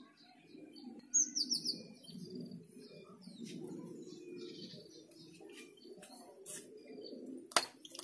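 Small songbirds chirping, loudest as a burst of quick downward chirps about a second in, then scattered short chirps over a faint low background. A sharp knock comes near the end.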